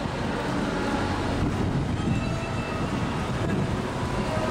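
Steady low mechanical rumble from docked cruise ships' machinery and ventilation, with no clear breaks.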